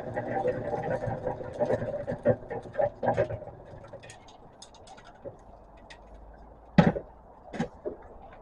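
Harbor Freight concrete mixer running, then falling quiet about three and a half seconds in, followed by a few sharp knocks, the loudest near the end.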